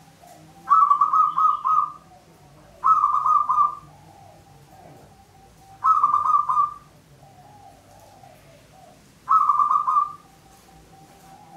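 Zebra dove (local Javanese perkutut) cooing: four rapid, pulsing phrases of about a second each, roughly every three seconds, with fainter low calls between them.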